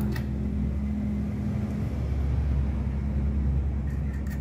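Steady low engine-like rumble with a constant hum, and a few faint clicks near the end.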